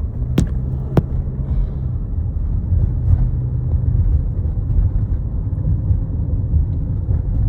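A car driving, heard from inside the cabin: a steady low engine and road rumble, with two sharp clicks about half a second apart near the start.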